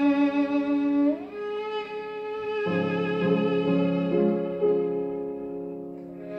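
Violin playing slow, sustained notes with a smooth slide up to a higher note about a second in, over piano accompaniment whose chords enter a little before halfway.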